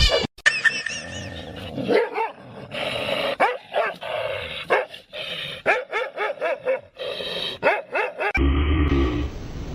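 A dog barking and yipping in many short calls, each rising and falling in pitch. Near the end the sound cuts abruptly to a steady low hum.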